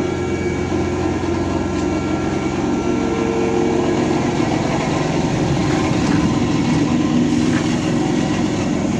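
Steady machine hum from standing HÉV suburban electric trains on either side, their on-board equipment running while the trains wait. A higher tone joins briefly about three seconds in.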